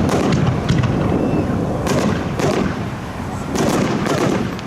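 Aerial fireworks bursting: a string of sharp bangs, about five, over a continuous low rumble.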